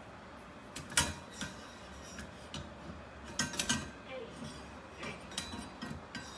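A few irregular sharp clinks and knocks, like hard objects being handled. The loudest comes about a second in, and a quick cluster follows just past the middle.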